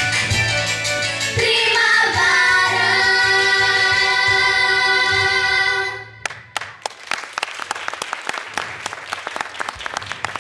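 A group of young girls singing over a backing track ends the song on one long held note, which cuts off sharply about six seconds in. Audience applause follows.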